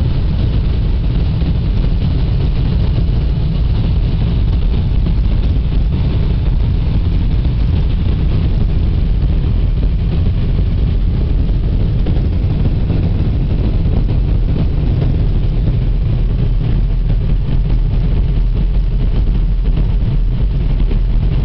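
Steady low rumble and hiss of a car heard from inside its cabin as it idles and creeps slowly forward, with no change in pitch or level.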